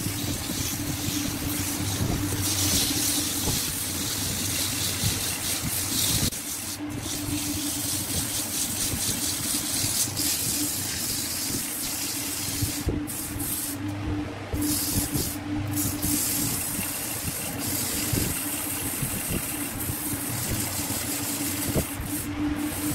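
Wood lathe motor running with a steady hum while hand-held sandpaper hisses against the spinning wooden vase.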